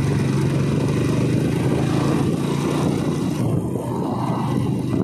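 Motorcycle engine running steadily at cruising speed, a constant low hum, with a rushing noise of wind and road on the moving bike.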